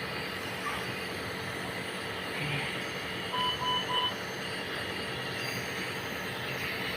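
Three short, evenly spaced electronic beeps in under a second, about halfway through, over a steady hiss of background noise.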